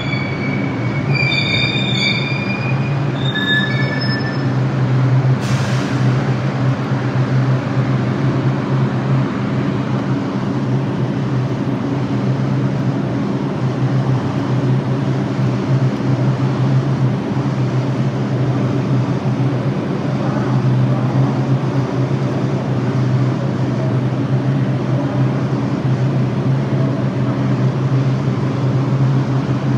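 New York City subway train running, a steady low hum over a noisy rumble. Brief high-pitched squealing in the first few seconds, and a single sharp knock about five and a half seconds in.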